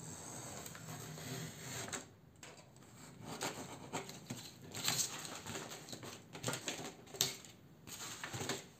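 A box cutter scraping through thin black paper along a cardboard edge, followed by irregular rustles, scrapes and taps of paper and cardboard being handled.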